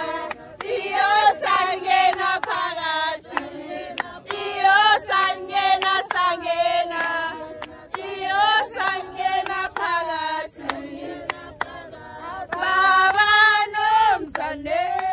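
A group of women singing a song together in chorus, with sharp hand claps through it.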